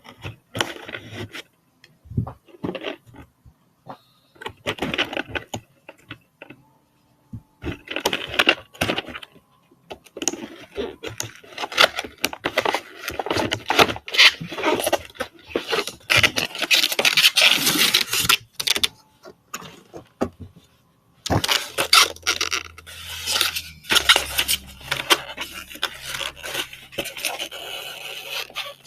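Small hard objects clattering, clicking and scraping as they are handled, in irregular bursts with short pauses.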